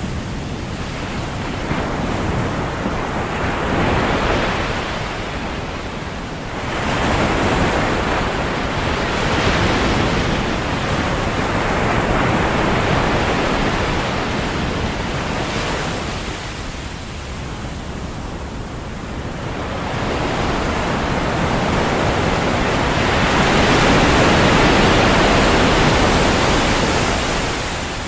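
Ocean surf: waves breaking and washing up a sandy shore, rising and falling in long swells several seconds apart, loudest near the end.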